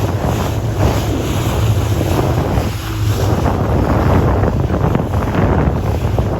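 Wind buffeting the microphone on a moving motorboat, over the steady drone of its engine and water rushing past the hull.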